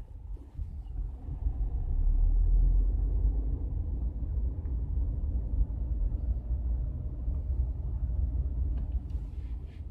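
Skoda Octavia on the move, with steady low road and tyre rumble. A couple of short knocks near the end are the suspension knock the owner is trying to capture.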